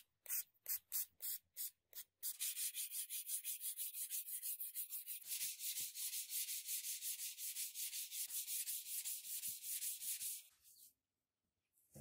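Steel knife blade being hand sanded with 220-grit sandpaper: a few separate strokes, then quick, even back-and-forth strokes, about five a second, that stop about a second before the end.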